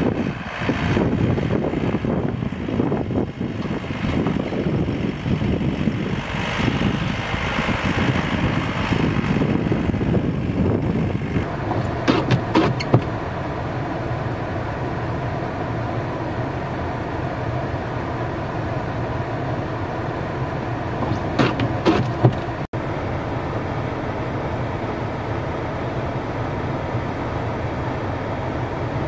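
An engine running steadily, over a rushing noise in the first part, with a few brief knocks.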